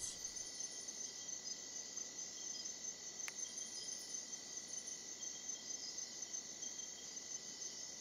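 Steady, high chorus of night insects in the rainforest, with a thin steady whine running under it and a single faint tick about three seconds in.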